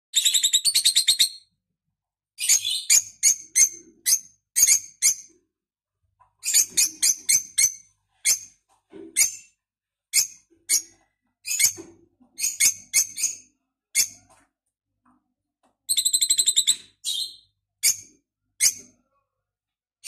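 Parrot nestlings chirping: repeated bursts of rapid, high-pitched chirps, each burst lasting about a second, with short pauses between them.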